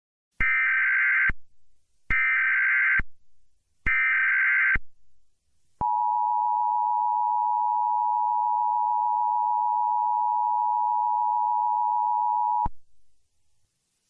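Emergency Alert System signal: three short bursts of SAME header data, each a little under a second, a harsh digital screech. After them comes the steady two-tone EAS attention signal, held for about seven seconds and cut off sharply. Together they mark the start of an emergency alert broadcast.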